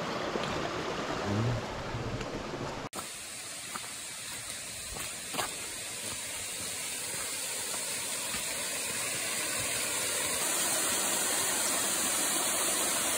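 Rushing water of a cascading mountain stream, a steady hiss that changes abruptly about three seconds in and then grows slowly louder.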